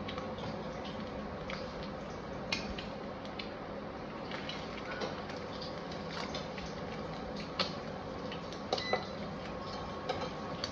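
Egg and chapati cooking on a hot tawa: a steady sizzle with scattered small crackles and pops. A few sharper clicks against the pan, and a faint steady hum underneath.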